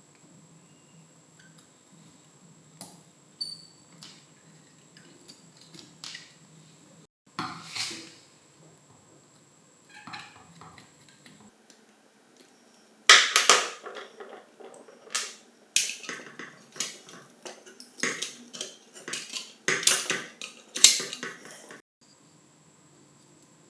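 Metal parts and hand tools clinking and knocking on a hard surface: scattered light clicks at first, then a busier run of louder knocks and clatter over the second half, typical of an old angle grinder being taken apart.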